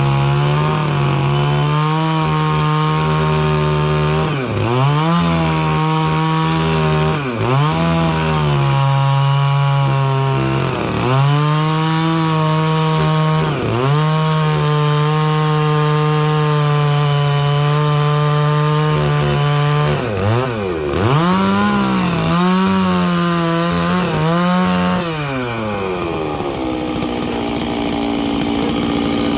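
Stihl 660 two-stroke chainsaw with a 36-inch bar running at high revs, rip-cutting dry larch lengthwise. Its note dips and climbs back several times as the chain loads up. About 25 seconds in, the pitch falls and settles to a lower steady note.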